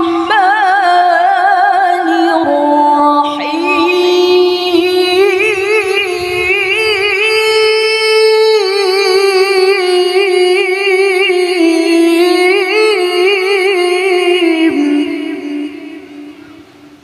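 A woman's voice in melodic Quran recitation (tilawah), drawing out 'ar-Rahman' of the Basmala in one long phrase. The held notes carry quick wavering ornaments and step up and down in pitch, then fade out about two seconds before the end.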